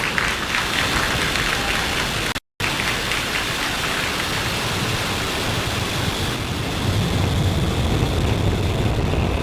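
Falcon 9 rocket's first-stage engines at liftoff: a loud, continuous rushing roar of rocket exhaust, broken by a brief dropout about two and a half seconds in. After about six seconds the roar turns duller and deeper.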